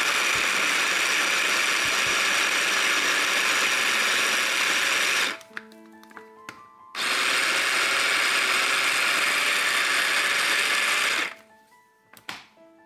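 Cuisinart mini food processor chopping red onion, garlic and ginger for a spice paste: the motor runs in two long steady pulses, about five seconds and then about four, with a short pause between, and stops abruptly about a second and a half before the end. A single knock comes near the end.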